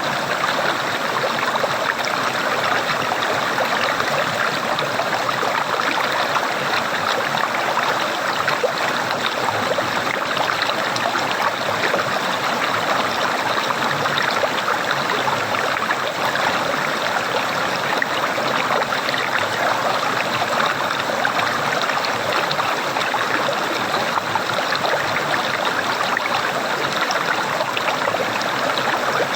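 Running water gurgling steadily, a continuous babbling flow with no pauses or changes.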